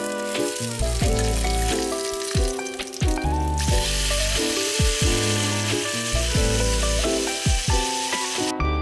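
Okonomiyaki frying in oil in a nonstick frying pan, sizzling steadily over background music. The sizzle grows louder about three and a half seconds in, once the pancake has been flipped bacon side down, and cuts off near the end.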